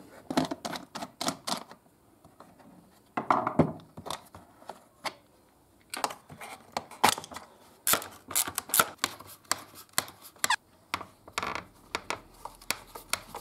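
Hand disassembly of a Stihl TS 420 concrete saw's plastic housing: irregular clicks, knocks and a brief scrape as the covers are handled and pried loose, with a cluster of quick clicks in the middle. Near the end a screwdriver works a screw in the cover.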